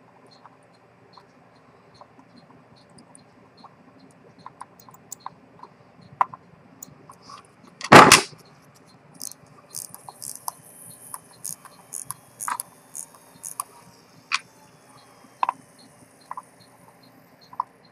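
Small clicks and taps of a watchmaker handling a Rolex 6694 watch movement in a wooden holder. One loud knock comes about eight seconds in, followed by a run of sharper clicks.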